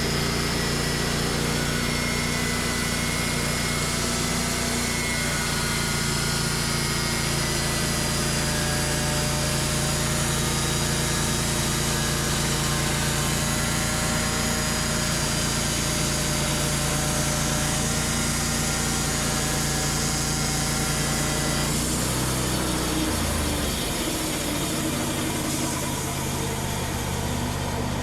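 Wood-Mizer LT35 portable band sawmill running steadily while milling a log. About 22 seconds in, the engine note shifts and drops lower.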